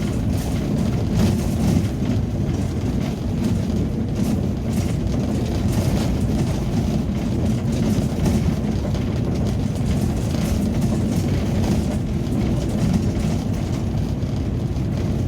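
Ambulance engine and road rumble heard from inside the cabin while driving, a steady low drone.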